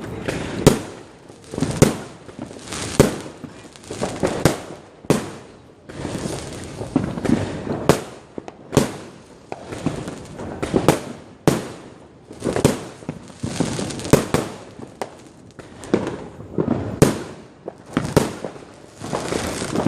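Fireworks going off: sharp bangs about once a second, with crackling fizz from bursting shells between them.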